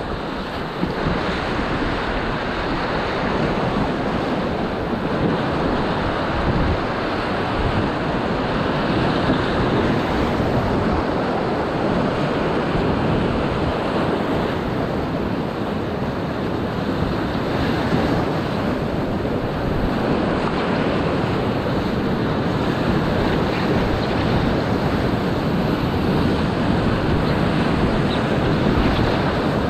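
Rushing whitewater of a river rapid at 1600 cfs, a steady, loud churning of water, with waves splashing close against the bow of a packraft.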